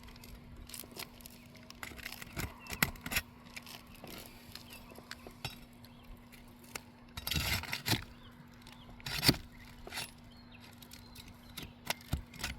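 Roofing nails being pried out of asphalt shingles with a metal bar: scattered metal clicks and scrapes, a longer scrape about seven seconds in, and sharp clinks about nine seconds in and again near the end.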